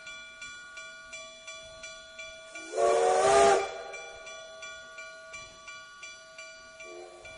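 A clock ticking about twice a second over a steady ringing chime tone. About three seconds in, a loud steam locomotive whistle blows for about a second, several notes at once, with a hiss of steam. A short, fainter whistle toot comes near the end.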